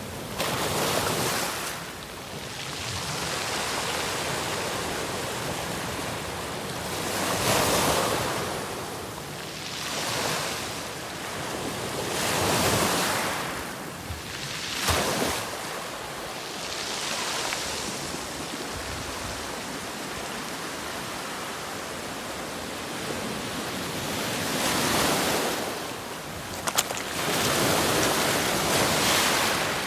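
Ocean surf: waves breaking and washing in, swelling and falling every few seconds, with wind on the microphone and a brief sharp click about 27 seconds in.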